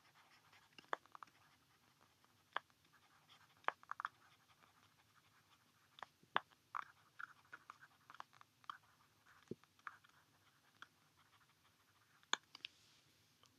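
Faint, irregular clicks and short scratches of a stylus writing on a tablet screen, busiest in the middle of the stretch.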